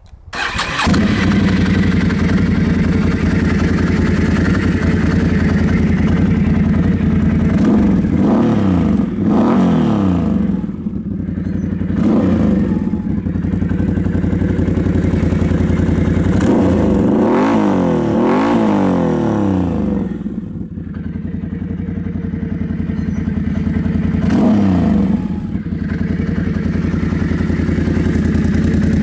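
2008 Can-Am Renegade 800X ATV's V-twin engine, through a Ron Woods aftermarket exhaust, starts right at the beginning and then idles loudly. It is revved in a few quick blips about a third of the way in, again a little past the middle, and once more near the end.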